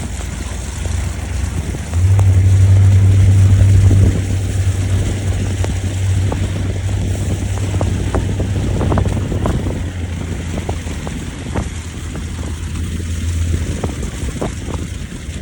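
Vehicle engine running with a steady low hum that swells louder for about two seconds, two seconds in, then settles, with scattered clicks and crackles in the second half.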